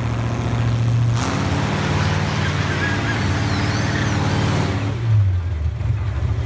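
Monster truck engine running loudly, louder and fuller for a few seconds from about a second in, then dropping in pitch near the end.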